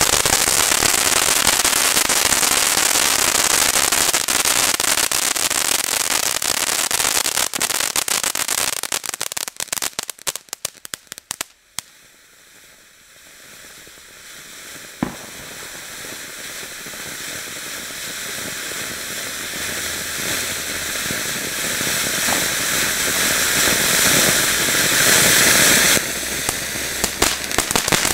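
Klasek Signature Vulkan 250 g ground fountain burning: a dense stream of rapid crackling for about the first ten seconds, which thins out and stops, then a hissing spray that grows steadily louder, with a single pop about fifteen seconds in.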